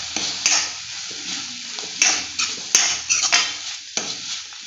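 A metal spatula stirring and scraping chopped cabbage, capsicum, beans and carrot around a hot kadai as they sizzle. It makes repeated irregular scrapes and clicks against the pan.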